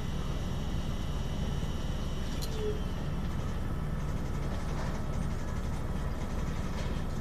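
Steady low machine hum with a faint high whine; a click about two and a half seconds in, after which the whine drops away.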